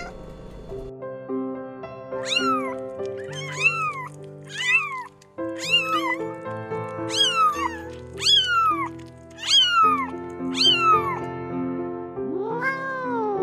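Kittens meowing repeatedly: about a dozen short, high meows, then one longer, lower meow near the end, over background music with held notes.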